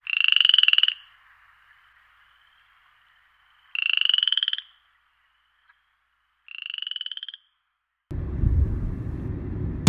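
A frog calls three times, each a rapid trill about a second long, the third quieter. A low rumbling sound comes in about eight seconds in.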